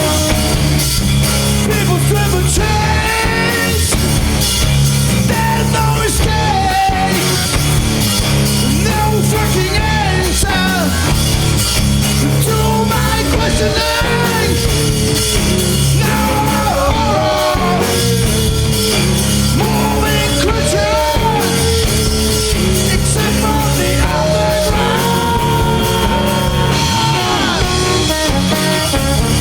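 A small rock band playing live: drums, baritone guitar and trombone, with a lead melody line over a repeating low riff.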